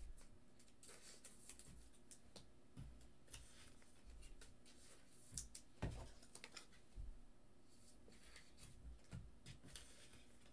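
Faint, irregular clicks and taps of a computer keyboard and mouse over a steady low room hum, with a louder knock about six seconds in.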